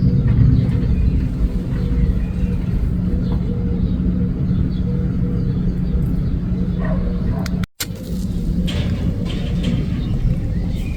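A steady low rumble with a faint, even hum. It drops out for an instant about two-thirds of the way through, and faint high chirps like birds follow.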